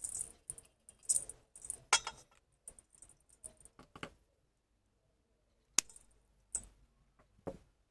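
Gritty potting mix crumbling off an oak seedling's roots and pattering into a stainless steel bowl. After a short pause, three sharp snips of scissors trimming the roots.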